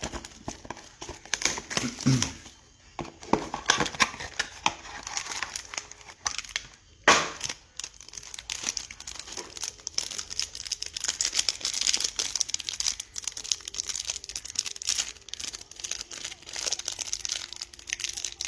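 Plastic wrapping on 2020 Panini Absolute football card packs crinkling and tearing as the packs are opened, with cards shuffled between the hands. One loud, sharp rip comes about seven seconds in.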